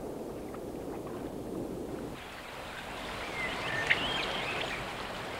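Muffled, low water noise, then about two seconds in a change to open pond sound: water moving around a swimming beaver, with a few faint bird chirps.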